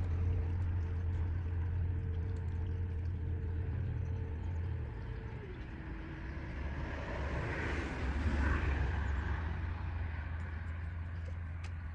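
A motor engine running with a steady low hum. Its pitch drops about five seconds in, and a swell of noise rises and fades again between about seven and nine seconds in.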